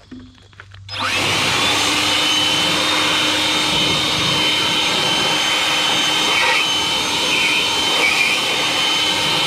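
Water spraying hard from a hose nozzle onto a mower deck, starting suddenly about a second in and running steadily.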